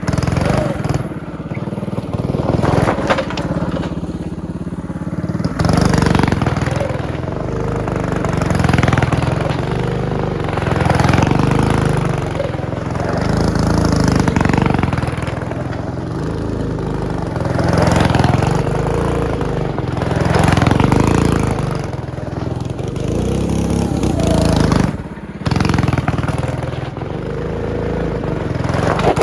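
Predator 212 Hemi single-cylinder small engine on a go-kart running under load, revving up and easing off again every few seconds as the kart is driven, with a brief drop near the end.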